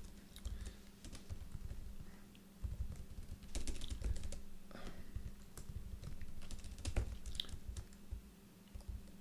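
Typing on a ThinkPad laptop keyboard: irregular keystrokes in short runs, over a low steady hum.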